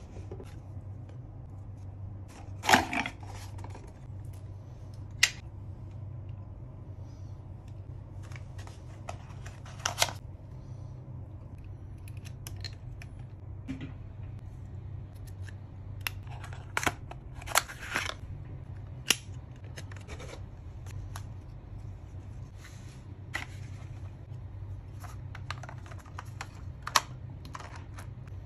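Hands handling a Polaroid SX-70 accessory kit: cardboard packaging, small plastic lens attachments and the camera itself, giving scattered short clicks and rustles over a steady low hum. The loudest click comes about three seconds in, and a cluster follows a little past the middle.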